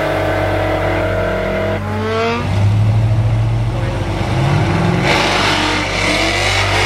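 Street race car engines: steady engine noise, then about two seconds in rising revs and a heavy rumble from two cars staged side by side, and about five seconds in both launch at full throttle with a hiss of spinning tyres under rising engine pitch.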